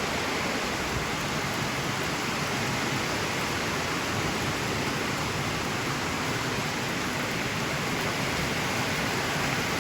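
Steady rain falling, an even hiss that holds level without a break.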